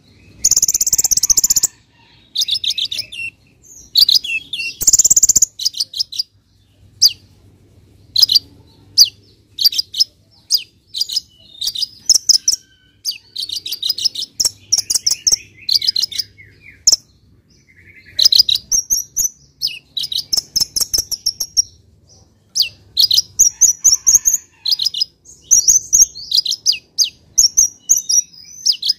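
Kolibri ninja (konin) sunbird singing vigorously: runs of rapid, sharp, high-pitched chirps and trills, broken by short pauses. A few loud, short blasts of sound come in the first six seconds.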